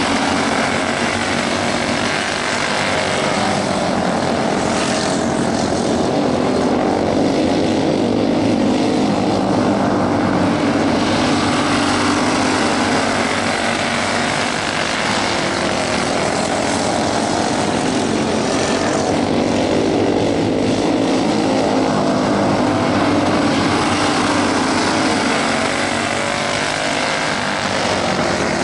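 A pack of dirt-oval racing karts with small single-cylinder flathead engines running at racing revs. Several engines overlap, their pitches bending up and down and swelling and fading as the karts pass and go around the track.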